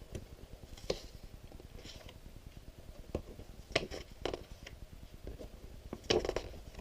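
A few scattered clicks and light taps from small objects being handled, the loudest cluster near the end.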